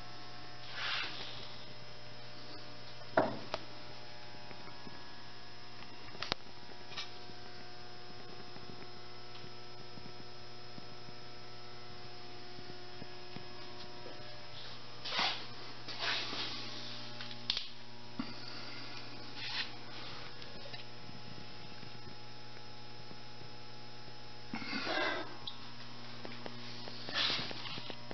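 Steady electrical mains hum, with scattered light clicks and brief rustles and one sharp knock about three seconds in.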